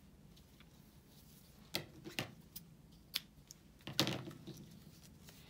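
Craft supplies being handled: a few light clicks and taps about two seconds in, then a louder short rustle about four seconds in, over quiet room tone.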